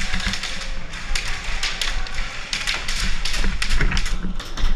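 Airsoft gunfire: sharp taps and clicks coming in quick, irregular clusters.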